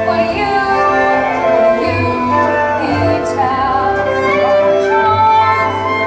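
Music: a girl singing a show tune over instrumental accompaniment, with long held notes.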